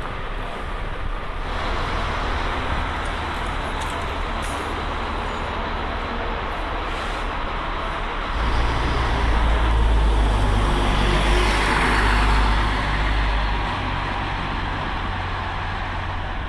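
City bus engine running at the curb over steady street traffic noise. Its low rumble grows much louder for about five seconds in the middle, with a brief rise in hiss near the loudest point.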